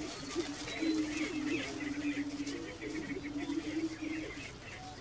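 Prairie chickens calling on their display ground: a low, steady cooing boom that stops about four seconds in, over many short higher cackles and whoops from the flock.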